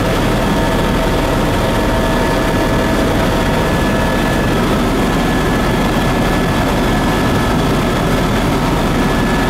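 Helicopter engine and rotor noise heard from inside the cabin in flight: a steady, dense rumble with a few unchanging high tones running over it.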